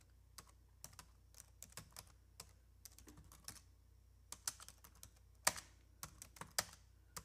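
Computer keyboard typing sound effect: a run of faint, irregular key clicks, a few louder ones past the middle, laid over text typed onto the screen letter by letter.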